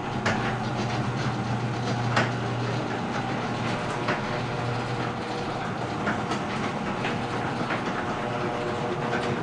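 LiftMaster 3265 chain-drive garage door opener moving a freshly lubricated door. The motor hums steadily, with a sharp click every two seconds or so, and the run sounds quieter now that the door has been lubed.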